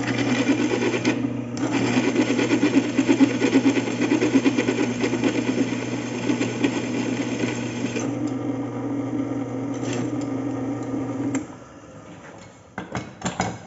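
Electric drill running steadily under load, drilling out the head of a rivet that holds the ball joint to the Chevrolet Spin's lower control arm. The drill briefly dips about a second and a half in and stops suddenly near the end. A few metallic knocks follow.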